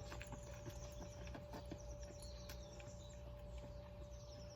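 Faint outdoor background of insects chirping: a high repeated trill that fades out near the end, over a steady low hum, with scattered light ticks.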